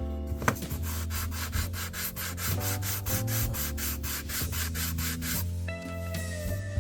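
Sandpaper rubbed back and forth by hand over a maple board, about four rasping strokes a second, rough-sanding the faces before gluing. The strokes stop near the end.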